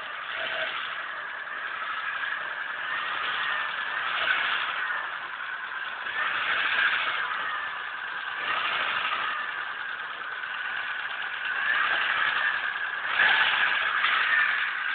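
Mitsubishi 4G63 2.0-litre four-cylinder engine running with an engine knock, with 200,000 km on it. The sound swells and eases every few seconds.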